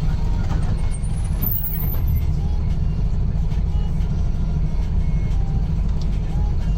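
Mercedes-Benz LO 916 bus's OM924LA four-cylinder turbodiesel running steadily, a low, even rumble.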